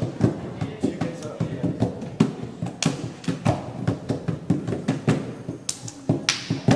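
A quick, even run of sharp taps or percussive strikes, about three a second, with music and voices faintly beneath.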